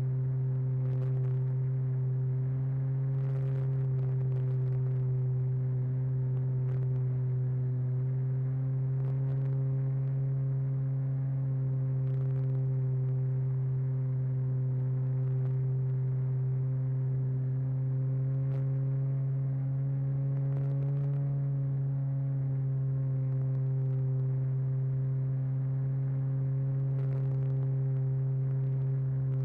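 Model airplane's motor and propeller running at a steady cruise, a low even hum with a slight rise in pitch around two-thirds of the way through, as heard from a camera mounted on the aircraft. A few faint ticks sound now and then.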